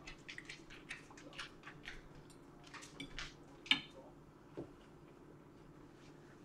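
Close-up eating sounds: wet chewing with small mouth clicks, then a fork set down on a plate with a sharp clink just before 4 seconds in, followed by a softer knock.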